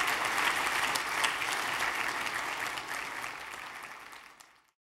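Audience applauding, fading out over the last second and cutting off just before the end.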